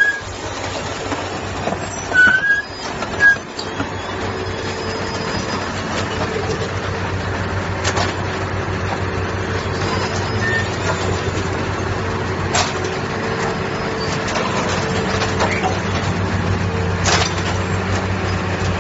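Heavy railway construction machinery running with a steady engine drone. There are a few short squeals and loud knocks in the first few seconds, and single sharp metallic knocks about three times later on.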